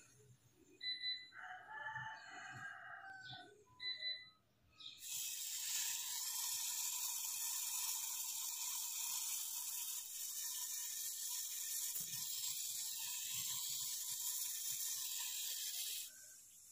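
Brazing torch flame hissing steadily while it heats a copper filter drier and capillary joint. The hiss starts about five seconds in and cuts off abruptly near the end. Before it come a few short pitched calls.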